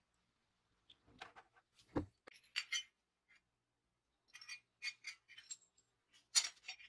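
Small metal tape-dispenser parts (shafts, a little gear, a steel plate) clinking and clicking against each other as they are handled, in three short clusters, with one duller knock about two seconds in.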